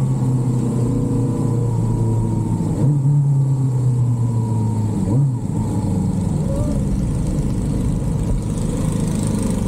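Suzuki Bandit 16-valve inline-four motorcycle engine running at low revs on the move. The steady engine note shifts about three seconds in, rises briefly and drops about five seconds in, then settles lower as the bike slows.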